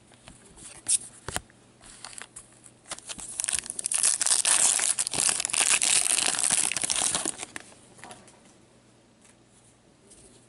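Wrapper of a 2014-15 Upper Deck Masterpieces hockey card pack being torn open and crinkled by gloved hands. A dense rustling runs from about three seconds in to about seven and a half, after a few light clicks of cards being handled.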